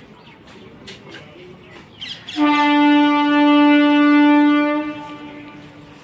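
Train horn sounding once: a brief upward slide into a single steady, loud note held for about two and a half seconds, then fading away.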